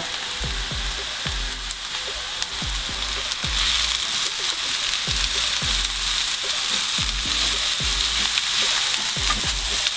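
Grated carrots and chopped onions sizzling in hot sunflower oil in a frying pan, stirred with a wooden spatula. The sizzle grows louder about three and a half seconds in.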